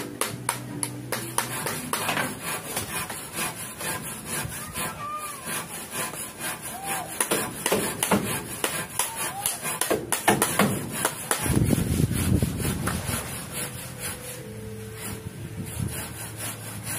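Plastic PVC pipe being handled and fitted by hand: irregular rubbing and scraping of plastic on plastic, with scattered clicks and knocks.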